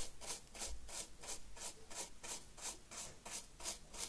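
Hard-bristled paintbrush sweeping back and forth through loose model-railway ballast grit on N gauge track, about five quick scratchy strokes a second, brushing the ballast off the sleepers and evening it out between the rails.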